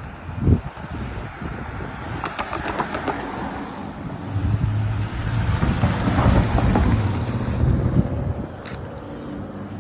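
A motor vehicle passing by, its engine hum swelling from about four seconds in and fading around eight seconds, over steady outdoor street noise. A single thump comes about half a second in.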